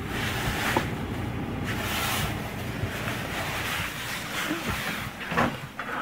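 Steady low hum of a running refrigerator under rushing, rubbing handling noise, with a few light plastic clicks as the fridge's plastic cover is handled.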